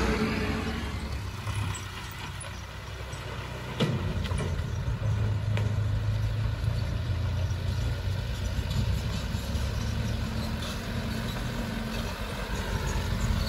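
Diesel engines of loaded dump trucks running as they drive along a road. The first engine fades as its truck pulls away, then about four seconds in a closer, louder truck engine is heard approaching over a dirt road.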